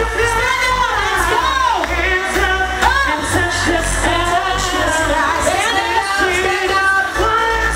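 Loud pop music with a singing voice over a heavy, steady bass.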